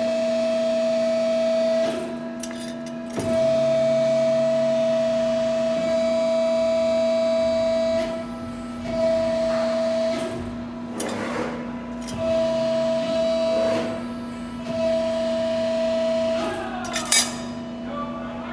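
Hydraulic system of a 1997 Cincinnati 90-ton CNC hydraulic press brake running: a steady pump hum with a louder, higher whine that comes on and cuts out five times, in stretches of one and a half to five seconds. A sharp click comes near the end.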